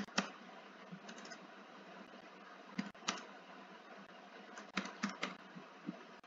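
Computer keyboard being typed on: a few separate, unevenly spaced key clicks, with a small cluster about five seconds in, over a steady faint hiss.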